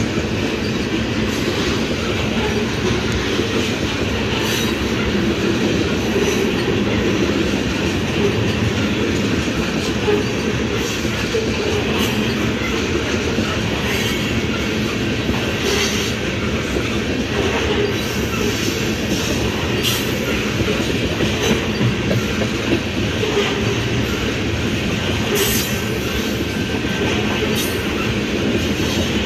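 Freight train of tank cars rolling past close by: a steady rumble of steel wheels on the rails, with occasional sharp clicks as wheels cross rail joints.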